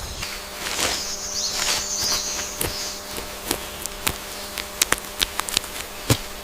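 Scattered sharp clicks and crackles, like twigs and dry leaves being stepped on or pulled at, with a high hissing buzz from about one to three seconds in.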